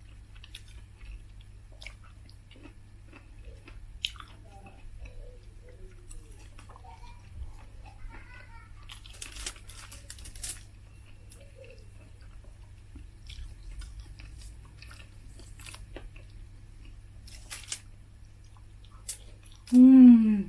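A person eating close to the microphone: chewing, with scattered bites and crackly crunches of crispy fried chicken skin. Right at the end comes a short, loud vocal sound that falls in pitch.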